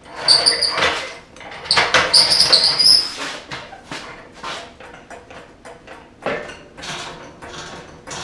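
Hydraulic floor jack being set in place and pumped: two high squeaks in the first three seconds, then a steady string of short clicks and knocks, a few a second, as the handle is worked to lift the chassis.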